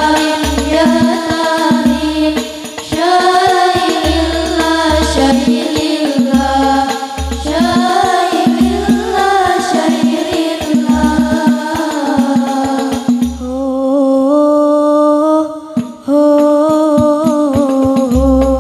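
Girls' voices singing an Islamic sholawat together through microphones over accompaniment with a deep bass beat about once a second. Near the end the beat and the higher accompaniment drop out for a few seconds, leaving the voices alone, before the beat comes back.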